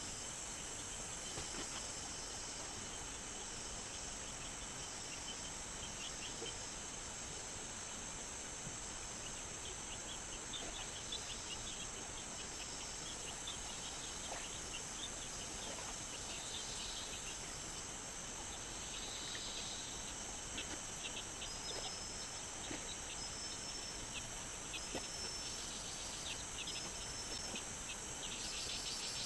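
Tropical rainforest insects droning steadily at a high pitch. About two-thirds of the way in, short high chirps begin, repeating about once a second.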